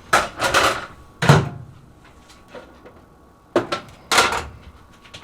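A microwave oven door and plastic bacon tray being handled: a series of clunks and knocks, the loudest about a second in, then a sharp click and another clunk later on.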